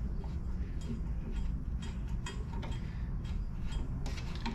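Light, irregular clicks and ticks, about two a second, from a hand screwdriver working small screws out of the body of a Razor Crazy Cart XL, over a steady low hum.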